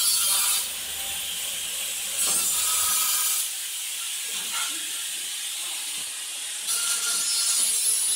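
Angle grinder cutting steel ceiling furring channels: a harsh high hiss with a faint whine. It is loudest at the start, again about two to three seconds in, and near the end.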